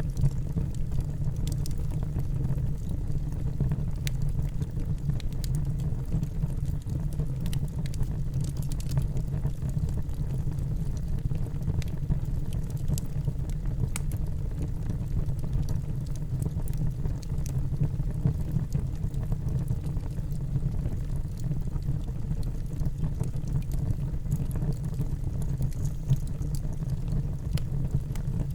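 Wood fire burning in a fireplace: a steady low rush from the flames, with small scattered crackles and pops.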